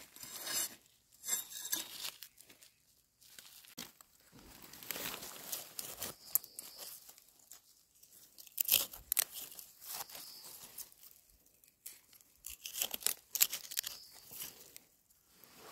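Hands and a knife scraping and digging through gravelly soil and dry leaf litter to pick wild mushrooms: irregular rustling, crunching and scraping, with several short sharp scrapes.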